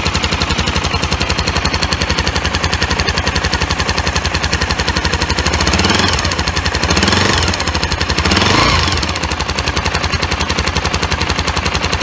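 Honda GB250's air-cooled single-cylinder four-stroke engine idling with an even, rapid beat, blipped three times about six, seven and eight and a half seconds in, each rev rising and falling back to idle.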